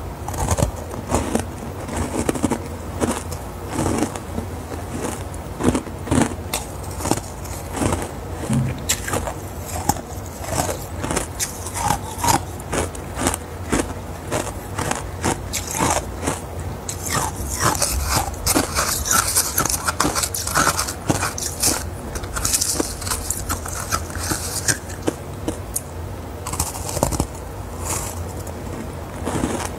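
Close-miked crunching and chewing of frosty ice: dense, irregular sharp crunches and crackles as the ice is bitten and broken up in the mouth, over a low steady hum.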